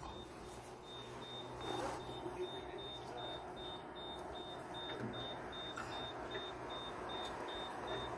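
Faint, high-pitched electronic beeping from a vehicle's warning beeper, a little over two beeps a second starting about a second in, over a low steady hum.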